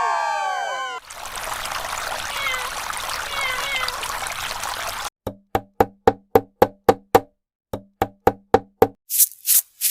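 Cooking sound effects: a falling swoop, then a few seconds of watery hissing, then two runs of quick regular knocks, about four or five a second, like a knife chopping on a wooden cutting board. Short high hissing puffs follow near the end.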